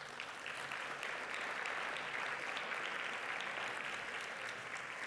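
Audience applauding: many hands clapping together, starting at once and beginning to die away near the end.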